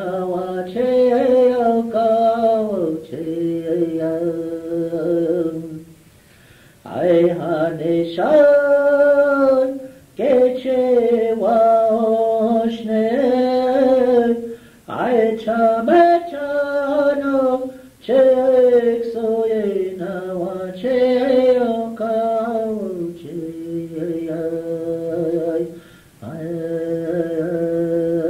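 Unaccompanied chanted singing: long held notes in phrases of a few seconds, many falling in pitch at the end, with short pauses for breath between. Heard through an old consumer cassette recording.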